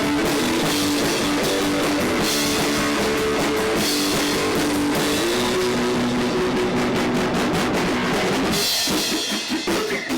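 Rock music with a drum kit and guitar, over sustained chord notes that shift to a new chord about five seconds in; the texture breaks up briefly near the end.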